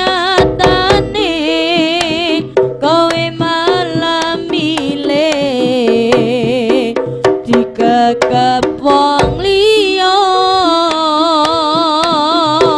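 Javanese jaranan ensemble playing an instrumental passage: a sustained, wavering melody line over struck kendang drum strokes.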